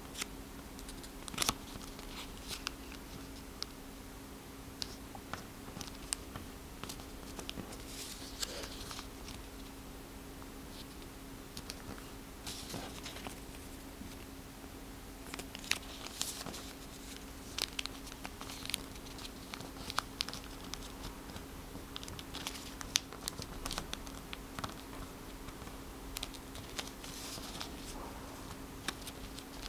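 A square of origami paper being folded by hand on a tabletop: scattered short rustles, crinkles and sharp clicks as flaps are turned and creases pressed flat. A steady low hum runs underneath.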